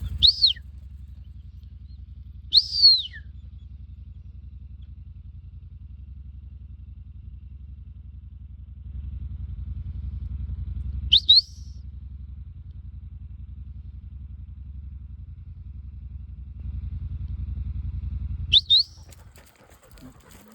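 Short, sharp whistles, four times, each rising then falling, over a steady low engine-like rumble that cuts out near the end.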